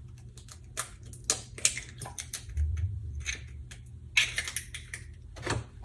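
Egg being cracked into a mug: a string of light, irregular clicks and taps of eggshell against the mug and shell pieces being handled.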